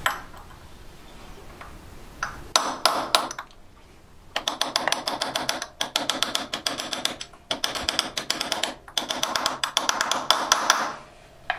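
Ball-pein hammer tapping a steel drift held against a motorcycle's front sprocket nut: a few taps, then quick runs of light ringing metallic taps, several a second, with brief pauses.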